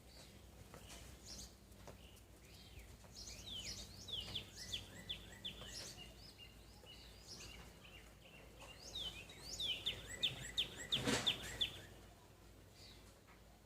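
Birds chirping: two quick runs of short, downward-sweeping chirps, the second one louder. There is a single sharp knock about eleven seconds in.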